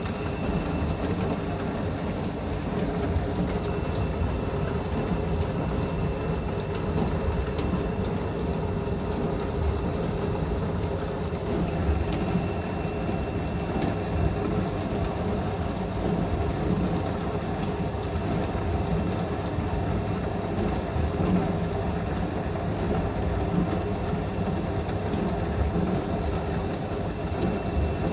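Dishwasher running: a steady wash of churning, spraying water over a low pump hum, unbroken throughout.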